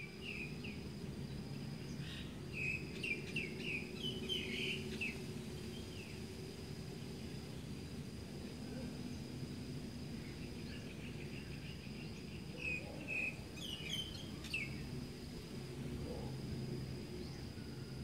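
Outdoor ambience: small birds chirping in short clusters, busiest in the first five seconds and again from about ten to fifteen seconds in. Under them run a thin, steady high tone that breaks off now and then and a steady low hum.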